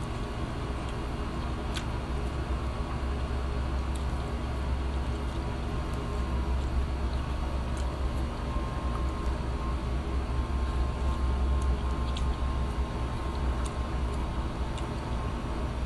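Steady low mechanical hum with a faint steady tone, with a few faint sharp clicks now and then from eating by hand.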